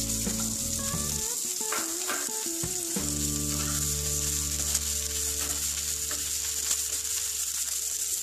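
Chopped onions frying in oil in a nonstick pan with a steady sizzle, stirred with a spatula.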